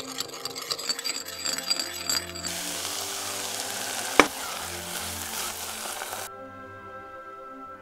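A metal spoon stirs cornstarch slurry in a ceramic bowl, with quick clinks and scrapes. Then a tofu and vegetable filling sizzles steadily in a saucepan, with one sharp knock about four seconds in. The sizzle cuts off suddenly about six seconds in, and soft background music plays throughout.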